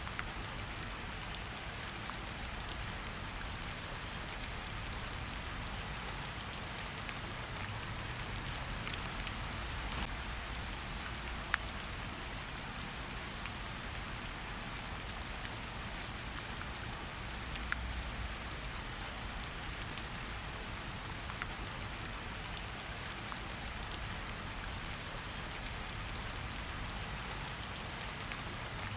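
Steady rain falling, an even hiss with scattered individual drops ticking on a surface and a faint low rumble underneath.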